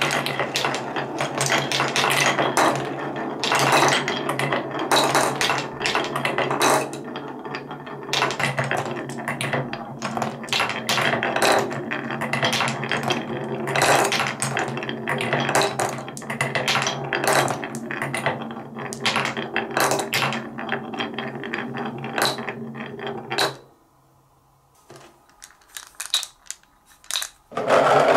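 Marbles rolling and clacking through a wooden Quadrilla marble run, knocking against the wooden blocks and chutes in a rapid, uneven run of clicks over a rolling rumble. The rattling stops about 23 seconds in, leaving a few faint taps.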